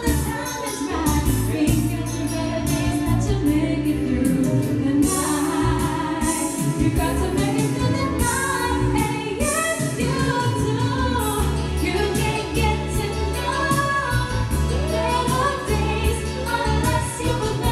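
A woman singing a melody into a handheld microphone over instrumental backing music with a steady beat.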